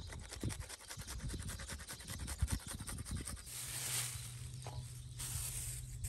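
Garlic being grated on a metal box grater over a metal bowl: rapid, even scraping strokes, turning into longer hissing scrapes about halfway through, when a low steady hum comes in.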